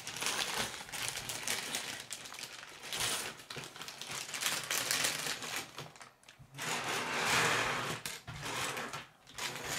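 Thin plastic bags crinkling as they are handled and worked open, with small plastic K'nex pieces clicking and rattling inside them.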